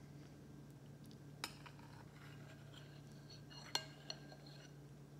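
Cutlery clinking against a bowl during eating: a light tap about a second and a half in, then a sharper ringing clink near the end with a smaller tap just after, over a faint steady hum.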